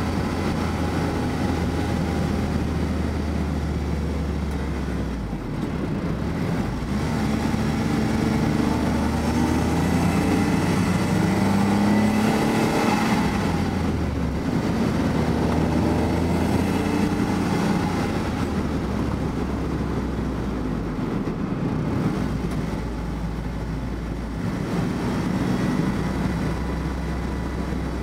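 Car engine and road noise heard from inside the cabin while driving. The engine note climbs for a few seconds about a third of the way in, then eases off about halfway through.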